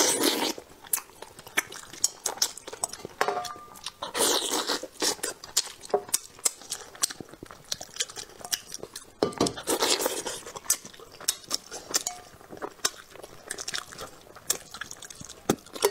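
Close-miked eating of a spicy, sauce-coated rooster head: wet sucking and slurping bursts at the start, about four seconds in and about ten seconds in, between steady chewing, with crunches of small bones and light clinks of a metal bowl.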